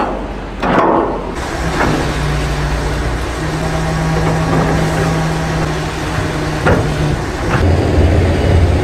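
Engine of an M3 amphibious bridging vehicle running steadily; its note shifts lower a little before the end. A few knocks stand out, one about a second in and two more around three-quarters through.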